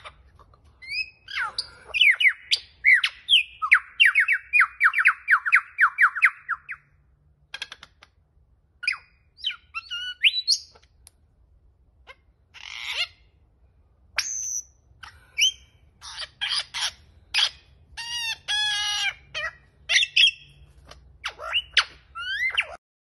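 Male superb lyrebird singing in display, running through a varied string of mimicked calls. It opens with a fast run of repeated downward-sweeping notes, then goes on to assorted whistles, squawks and chattering phrases with short pauses between them.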